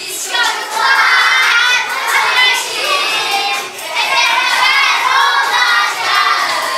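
A group of young children singing together loudly, with recorded music behind them.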